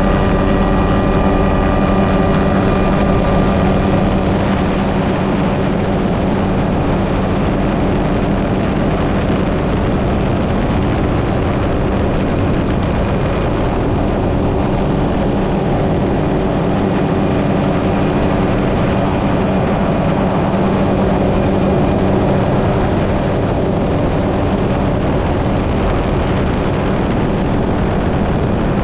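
Helicopter in flight heard from on board: the rotor and engine make a steady, loud drone with a constant low hum, over a rush of noise.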